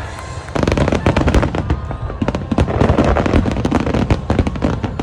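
Aerial fireworks display: a dense, rapid run of bangs and crackles breaks out about half a second in and continues.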